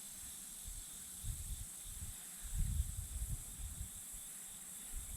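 Steady high-pitched hiss of an insect chorus, with a few soft low thumps over it.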